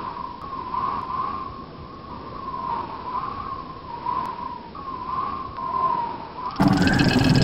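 A high, whistle-like tone that wavers up and down in pitch over a steady hiss. Near the end a much louder, fuller sound with deeper pitched tones suddenly cuts in.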